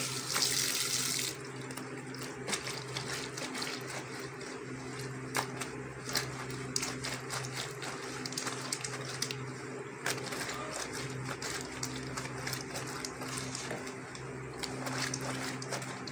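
Tap water running onto wet clothes, shutting off about a second in. Then a wet shirt is hand-scrubbed with a bar of soap on a concrete floor, with soft rubbing and small slaps, over a steady low hum.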